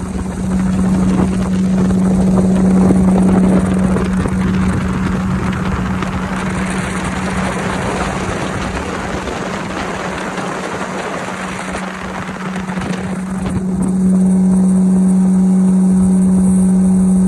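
A fishing skiff's outboard motor running at speed with a steady drone, over wind and water rushing past the hull. It gets louder about fourteen seconds in.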